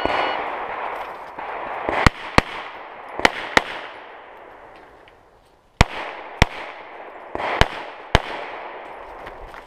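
Shot-timer start beep, then a pistol fired eight times in four quick pairs of double-taps, each shot sharp and echoing off the range.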